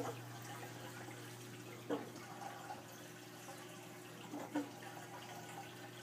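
Aquarium filter water trickling and gurgling in the tank, with short dripping plops near the start, about two seconds in and twice in quick succession around four and a half seconds, over a steady low hum.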